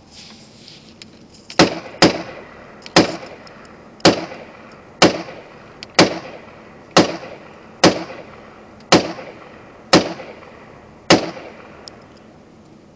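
AR-15 rifle fired semi-automatically, eleven sharp shots about a second apart, each trailing off in a short echo, heard from inside a vehicle.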